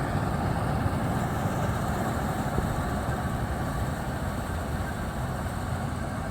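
Combine harvester running steadily as it cuts paddy, a low, even engine noise.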